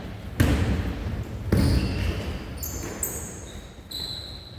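Basketball bouncing twice on a hard gym floor, each bounce echoing in the hall, followed by a few short high squeaks typical of sneakers on the court.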